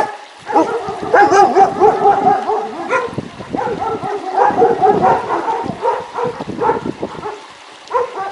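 Dogs yelping and barking in a rapid run of short, overlapping calls, with a brief lull about four seconds in.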